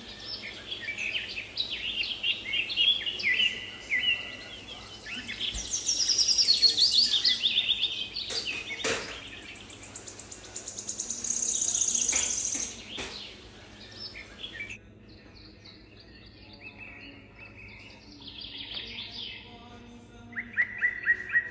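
Small songbirds chirping and singing in rapid trills of short notes. The song is busiest through the first two thirds, drops away for a few seconds, then comes back with a loud trill near the end.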